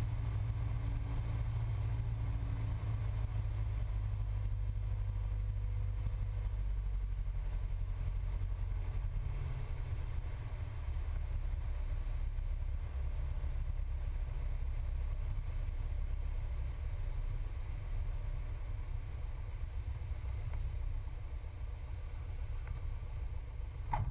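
Cessna 172's piston engine and propeller droning low and steady, heard from inside the cabin. The drone turns rougher about four seconds in.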